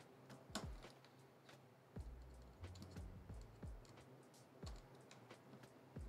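Faint, irregular small clicks and taps of hands and tools handling a power-cable connector and its thick conductors on a workbench.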